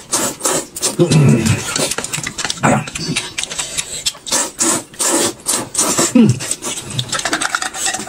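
Close-miked eating sounds: noodles being slurped up and chewed, with wet smacking mouth noises and a few short hummed 'mm' sounds.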